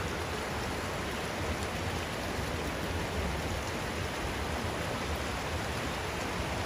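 Steady, even rush of a river flowing over rocks.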